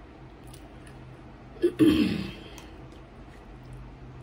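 A woman's short vocal noise, falling in pitch, about two seconds in as she eats a chicken wing, over a faint low hum.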